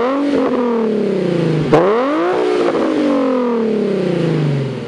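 2007 Infiniti G35x's 3.5-litre V6 free-revving through an ARK Performance aftermarket exhaust. A rev peaks just after the start and falls away, then a second sharp blip about two seconds in drops slowly back toward idle.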